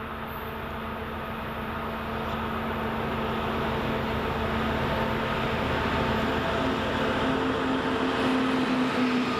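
A 2TE25KM twin-section diesel locomotive hauling a freight train approaches and draws level. The steady drone of its diesel engines grows louder throughout as it nears.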